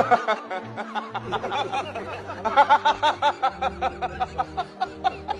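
A person laughing in quick, rhythmic pitched bursts, loudest about halfway through.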